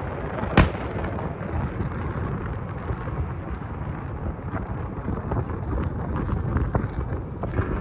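An aerial firework shell bursts with one sharp bang about half a second in, followed by fainter scattered pops and crackles, over a steady low rumble of wind on the microphone.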